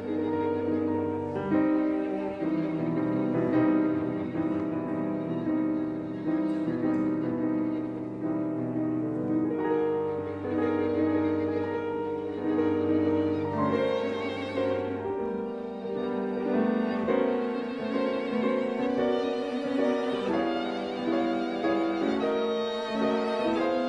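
Piano trio (violin, cello and piano) playing contemporary classical chamber music, with layered held notes and the violin prominent. A low held note drops out about two-thirds of the way through.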